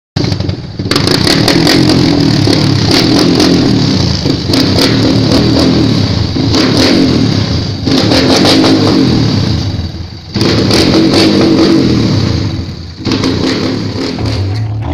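Off-road trail motorcycle engine revving hard under load, loud and rough with clattering, the throttle easing off briefly about a second in and twice more near the end.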